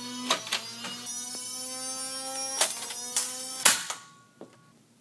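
Motorized Nerf Modulus blaster's flywheel motors whirring, the whine rising slowly in pitch as they spin up, with a few clicks. After nearly four seconds it ends in one loud sharp snap and the whine stops.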